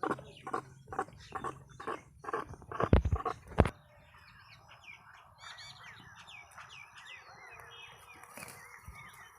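Small birds chirping and calling with quick rising and falling notes through the second half. Before that, about two short strokes a second end in two heavy thumps.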